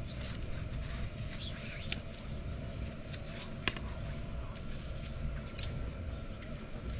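Chef's knife cutting raw chicken breast on a thick plastic cutting board: scattered light knocks and clicks as the blade meets the board, with one sharper knock about halfway through. A steady low rumble runs underneath.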